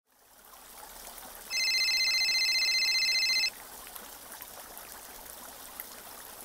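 An electronic telephone ringtone: one ring of about two seconds, starting about a second and a half in. Under it, the steady splashing of a garden pond fountain.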